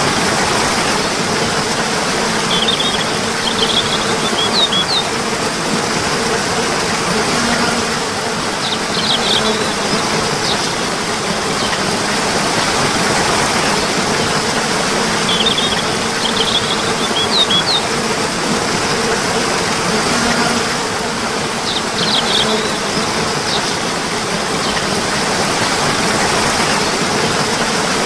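Steady rush of flowing water, with a small bird's short, high chirps coming in brief bursts about every six seconds.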